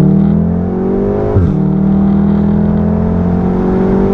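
VW Golf R MK7.5's turbocharged 2.0-litre four-cylinder, its exhaust resonator deleted and valves open in race mode, pulling under hard acceleration: the revs climb, drop sharply with a crack at a DSG upshift about a second and a half in, then climb again. Heard from the cabin with wind noise from the open window.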